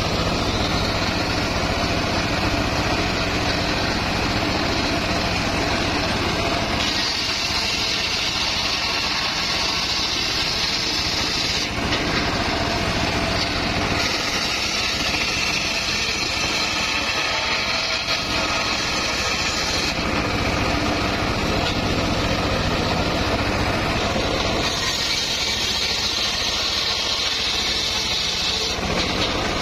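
Homemade circular table saw running steadily on its drive engine, the big blade ripping boards lengthwise into rafters. Three cuts, each a few seconds long, add a harsh, high hiss of blade in wood: about seven seconds in, about fourteen seconds in, and near the end.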